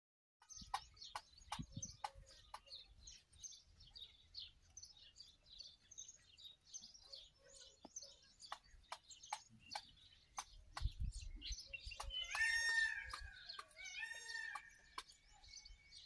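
Peacock pecking bajra grain from a bowl, with sharp ticks about twice a second, over steady chirping of small birds. Near the end, two short, louder pitched bird calls are heard.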